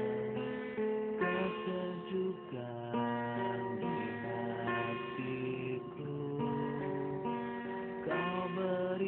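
Music, led by a plucked guitar playing a slow melody of held notes.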